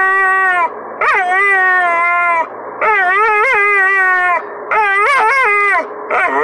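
Pit bull-type dog 'talking': a run of drawn-out, howl-like vocal calls, about four with short breaths between, the later ones wobbling up and down in pitch. It is the dog's answer to being asked to say 'I love you'.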